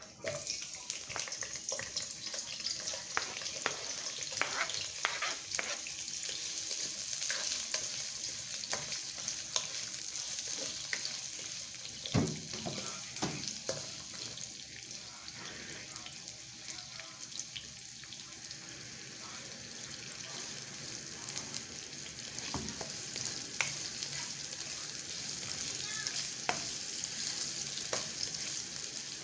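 Sliced onions hitting hot oil in a nonstick wok and sizzling steadily as they fry, with a spatula scraping and tapping against the pan and a louder knock about twelve seconds in.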